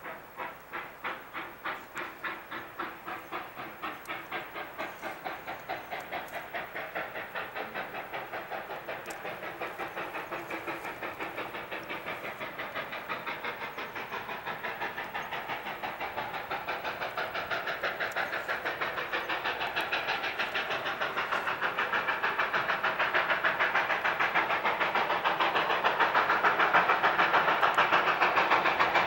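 Sierra Railway No. 28, a Baldwin 2-8-0 steam locomotive, chuffing in an even rhythm as it works a freight train, the beats quickening slightly and growing steadily louder as it approaches.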